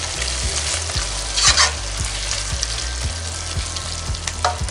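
Onions and tomatoes sizzling in oil in a granite-coated pan while a wooden spatula stirs and scrapes through them, with louder scrapes about a second and a half in and again near the end.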